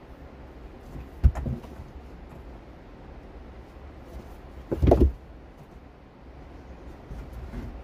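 Heavy rocks knocking and thudding as they are set down on a stacked dry-stone wall: a sharp knock about a second in, a heavier, longer thud near five seconds, and a lighter one near the end.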